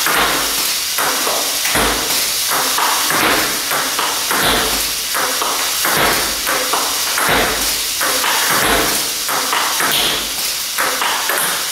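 Table tennis balls clicking and knocking irregularly, several times a second, as they are launched, bounce on the table and are hit back with a paddle. Under them runs a steady high hiss from the running launch motors of a Lego Technic ball-launching robot.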